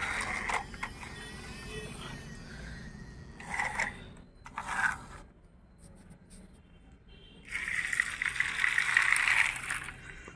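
Plastic toy vehicles rattling and scraping as they are handled and moved about on a hard floor. The sound comes in a few short bursts, then a longer scrape of about two seconds near the end.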